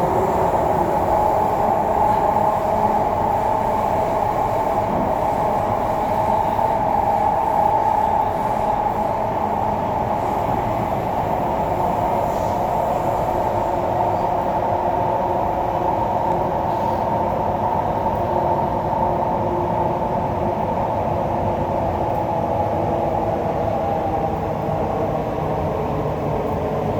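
An MTR East Rail Line electric train running at speed: a steady rumble of wheels and motors, with a strong mid-pitched hum that shifts a little over the stretch.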